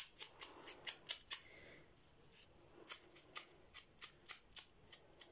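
Paintbrush bristles flicked repeatedly across a wooden craft stick, spattering paint: quick sharp ticks about four a second, pausing for about a second and a half partway through.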